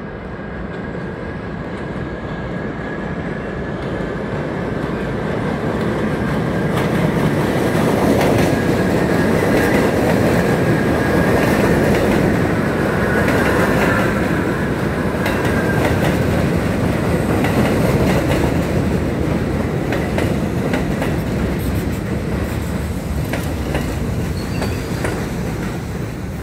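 An R160 New York subway train runs into an elevated station, its wheels clattering over rail joints, with a steady high squeal over the rumble. It grows louder over the first several seconds and stays loud as the cars pass close by.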